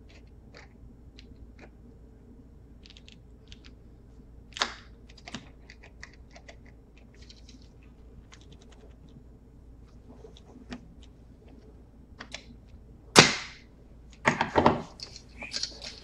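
Hand tools clicking and scraping against a laptop's hinge while a tight screw is worked at, in scattered small ticks. Near the end comes one sharp knock, the loudest sound, then a short run of louder knocks.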